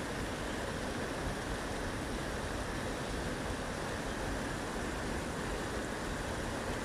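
Stream water pouring over a low weir: a steady, unbroken rush of falling water.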